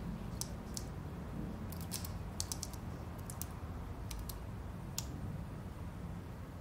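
Goldfish flopping on a wet floor: irregular small taps and clicks over a low steady rumble.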